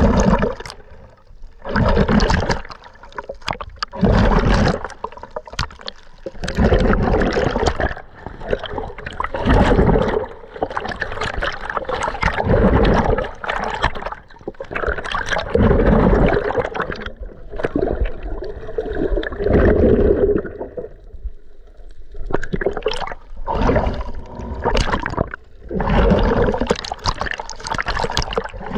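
Water sloshing and gurgling around a camera held at the surface and just under it while snorkeling, swelling in surges about every two to three seconds.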